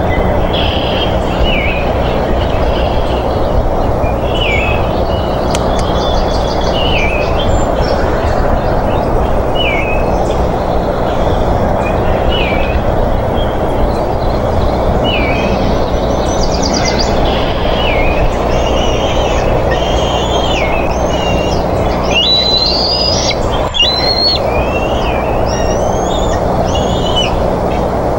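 Small birds singing short, repeated phrases every second or two, busier and higher-pitched in the second half, over a steady loud rushing noise with a low electrical hum.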